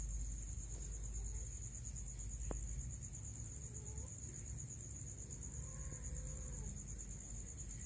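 Cats giving a few faint, drawn-out meows, two of them about four and six seconds in, over a steady high-pitched whine and a low rumble.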